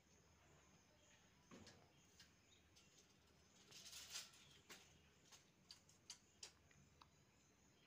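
Near silence, with faint scattered clicks and a brief soft rustle about four seconds in.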